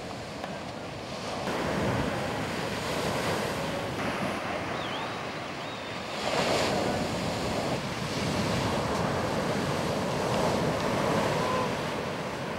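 Surf breaking on the beach in rising and falling surges, the loudest about six and a half seconds in, with wind buffeting the microphone.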